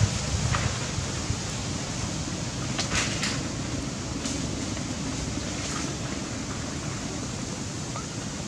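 Steady outdoor background noise with a few faint short clicks, a small cluster of them about three seconds in.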